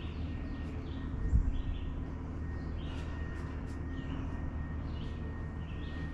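Wood-Mizer LT35 portable sawmill's engine running low and steady, with a low hum, after the cut; birds chirp throughout, and there is one low thump about a second in.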